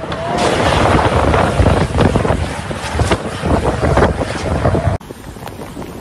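Violent storm wind gusting and buffeting the microphone, loud and rough. About five seconds in it cuts abruptly to a quieter, steady rush of floodwater.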